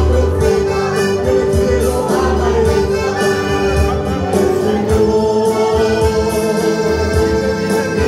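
Worship music from a church band playing a medley of choruses: held melody notes over a strong bass and a steady drum beat.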